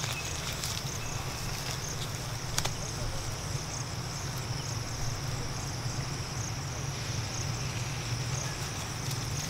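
Insects trilling in the trees, a steady high buzz with a faint regular pulse, over a low steady rumble; one sharp click about two and a half seconds in.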